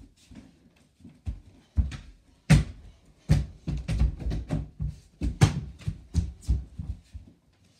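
Irregular knocks and thuds, a dozen or so in quick clusters from about two and a half seconds in: a mini basketball hitting the over-the-door hoop's backboard, the door and the floor.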